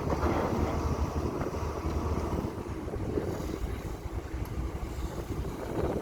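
Diesel engine of a CAT 320 long-reach excavator running steadily as a low, fluctuating rumble, with some wind noise on the microphone.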